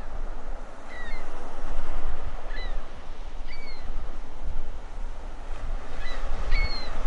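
Sea waves washing steadily, with about half a dozen short gull cries scattered through.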